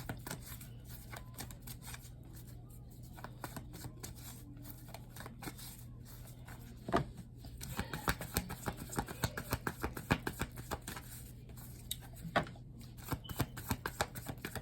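Tarot cards being shuffled by hand: a faint run of quick, crisp card clicks, sparse at first and dense through the second half, over a low steady hum.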